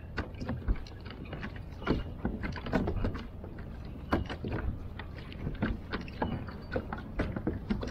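Water lapping and slapping against a fishing kayak's hull in small, irregular knocks, over a low wind rumble on the microphone.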